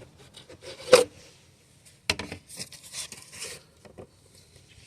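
Hands and a tool working at the car battery: a sharp clack about a second in and another about two seconds in, with scraping and rubbing sounds between them.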